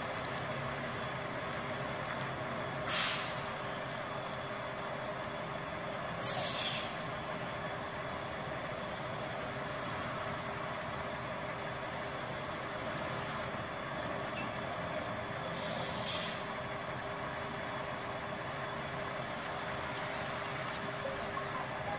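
Tractor-trailer's diesel engine running steadily, broken by three short hisses of the air brakes: the loudest about three seconds in, another a few seconds later and a fainter one past the middle.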